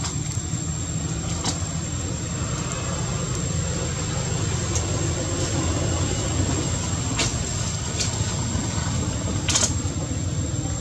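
Steady low rumble of an engine idling, with a thin high whine running over it and a few faint clicks, one a little stronger near the end.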